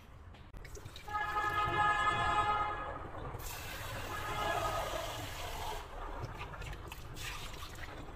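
Water splashing and running in a stainless steel kitchen sink as the jug of a mini nut-milk maker is emptied and rinsed under the tap. A ringing, pitched splash about a second in is the loudest part, followed by a couple of seconds of steady running tap water.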